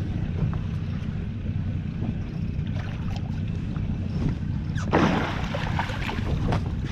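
A hooked striped bass thrashes and splashes at the water's surface beside the boat, briefly and loudly, about five seconds in. Under it runs a steady low rumble of wind and water around the boat.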